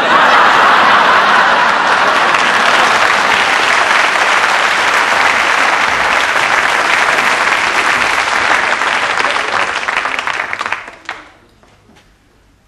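Sitcom studio audience applauding, loud and steady, fading out about eleven seconds in.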